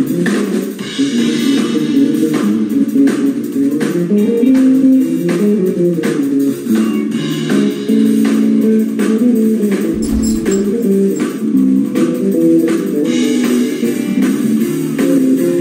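Live instrumental jazz-funk from an electric guitar, bass and drum trio: the electric guitar plays a fast, busy melodic line over bass guitar and drum kit.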